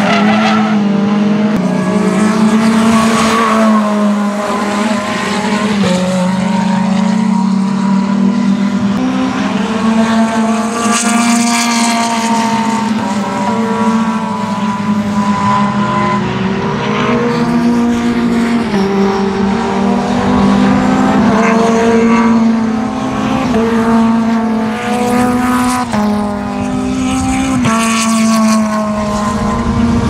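Mitjet race cars' Renault 2.0-litre four-cylinder engines running hard on track, the pitch climbing and dropping again and again with gear changes and braking as the cars go by.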